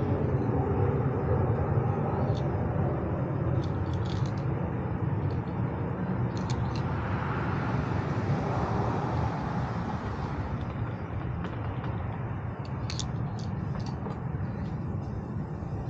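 Steady low outdoor rumble with a soft rushing swell about halfway through, and a few scattered light clicks and taps from hand work on the truck topper's ladder rack.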